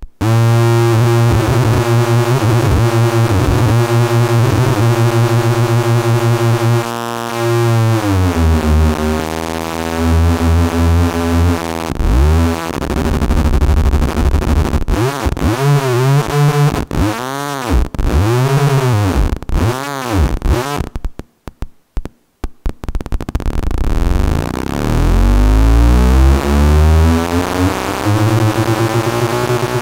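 Electronic tones from a photoresistor sound circuit, their pitch following the brightness falling on the light-dependent resistors: a buzzy tone with many overtones that wavers, glides down about eight seconds in, then swoops up and down in repeated arcs. It cuts out for about a second two-thirds of the way through, then glides steadily upward.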